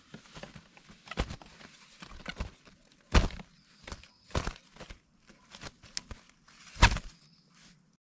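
A woven bamboo basket trap being handled as a hand reaches under it to grab a trapped bird. It gives irregular rustles and knocks of bamboo and leaf litter, the loudest about three seconds in and again near the end.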